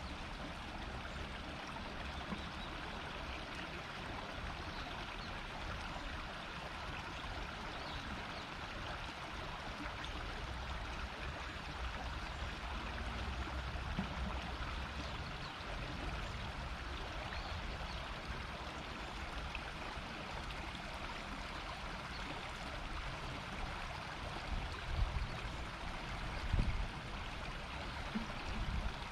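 River water running and murmuring over a shallow bed, a steady rush. About three-quarters of the way through there are two brief low rumbles.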